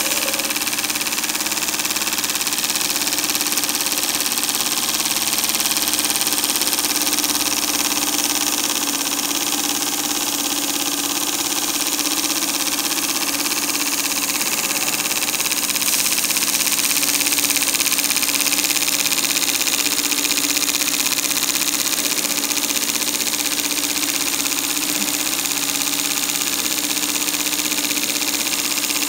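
TVR1A model marine steam engine running steadily under steam, with an even hiss throughout. It runs smoothly after adjustments to its valve timing and slide-valve position.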